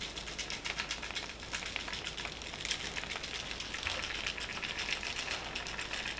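Dry barbecue rub sprinkled by hand onto raw chicken wings in a disposable aluminium foil pan: a soft, irregular run of fine ticks as the granules land.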